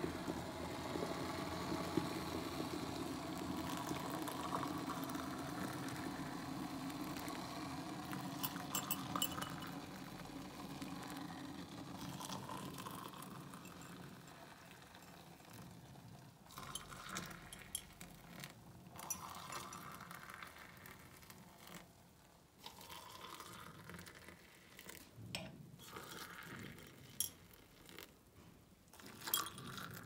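A glass electric kettle's steady boiling rumble fades away over the first dozen seconds. Then hot water is poured from it into mugs, and spoons clink against glass and ceramic cups in scattered short clinks while instant coffee is stirred.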